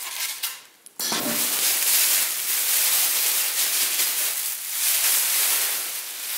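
Packaging rustling and rubbing as a boxed thickness planer is unpacked. It starts suddenly about a second in as a dense, hissy scraping and eases near the end.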